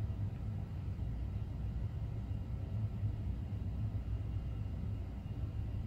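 Steady low background rumble with no distinct event.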